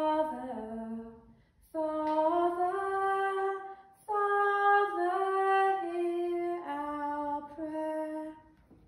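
A woman singing alone, unaccompanied: a slow sung prayer response in three phrases of held notes that step up and down in pitch.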